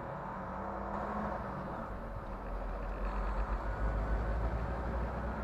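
Semi truck's diesel engine rumbling in the cab as the truck creeps forward at walking pace, swelling a little after about three seconds as it picks up speed.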